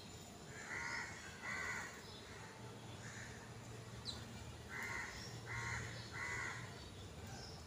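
A crow cawing off-picture: two harsh caws about a second in, then a run of three more caws after about five seconds, with a brief high chirp or two from small birds.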